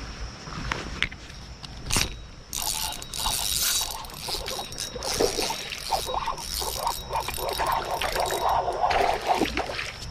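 Irregular scraping and splashing water noises that start after a sharp click about two seconds in.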